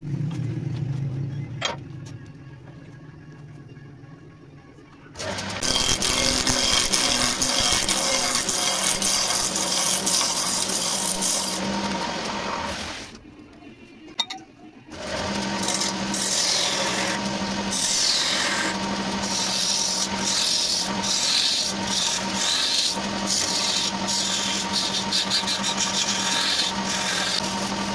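Wood lathe running while a hand-held turning tool cuts into a spinning wooden blank: a loud, steady scraping cut over the lathe motor's hum. The cutting starts about five seconds in, stops for about two seconds in the middle, then resumes.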